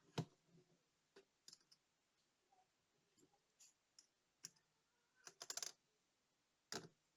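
Light, scattered clicks and taps of small watch parts and fine tools being handled during the disassembly of a Soviet Montana digital watch, with a quick run of rapid clicks about five seconds in.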